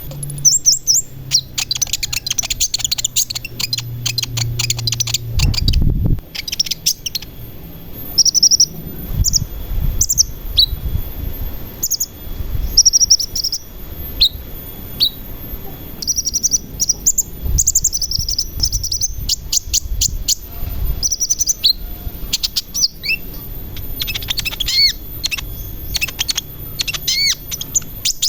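Sunbird song: rapid, high chirps and trills in short bursts, some notes sliding up or down. A low hum lies under the first five seconds and ends in a thump.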